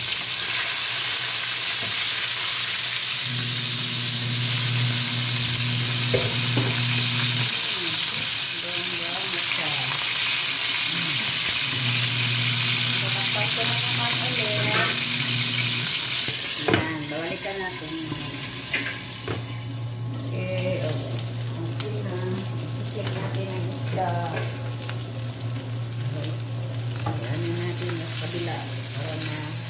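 Fish pieces sizzling as they fry in hot oil in a nonstick frying pan, nudged now and then with a wooden spatula. The sizzle drops abruptly to a softer level a little past halfway, over a steady low hum.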